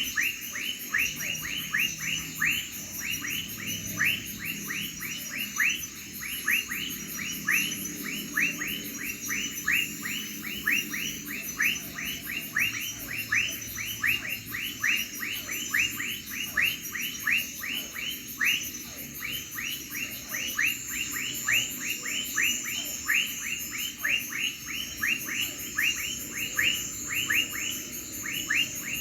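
Night chorus of crickets: a constant, very high-pitched pulsing trill, with a louder short chirp repeated evenly about three times a second throughout.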